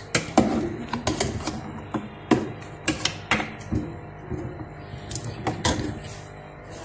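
Steel ladle stirring meat in boiling broth in an aluminium pot, clinking and knocking against the pot's sides in irregular strikes that die away near the end.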